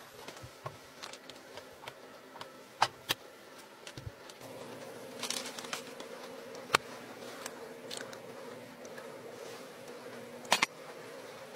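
Induction cooktop buzzing steadily under an enamel saucepan as it heats, the hum growing stronger about four seconds in. A few sharp clicks and taps sound over it.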